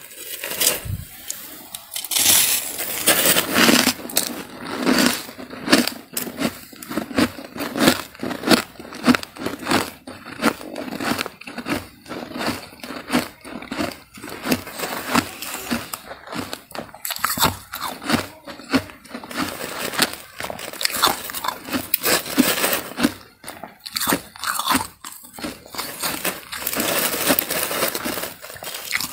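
Loose freezer frost crunching as fingers squeeze and break it up in a plastic bag, a dense, uneven run of small crackles.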